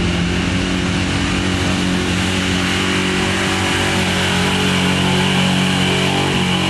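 A mud-bogging truck's engine held at high revs, a steady loud drone with a high whine above it that keeps on without a break.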